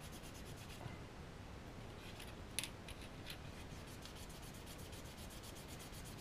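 Cotton bud wetted with enamel thinners rubbing over a plastic model wagon panel, a faint scrubbing as a printed transfer is wiped off, with a single light click about two and a half seconds in.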